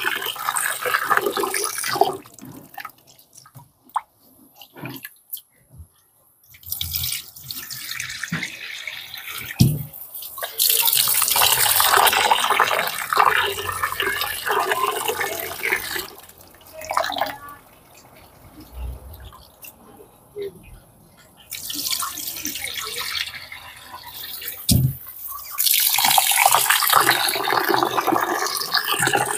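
Tap water pouring and splashing into a metal pot as rice is rinsed by hand, loud for stretches of a few seconds and much quieter in between. A couple of short knocks come through, about ten seconds in and again near the end.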